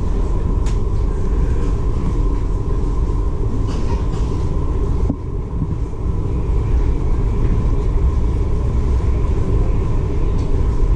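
Ferry underway, engines running: a steady low rumble with a faint steady hum above it, dipping briefly about five seconds in.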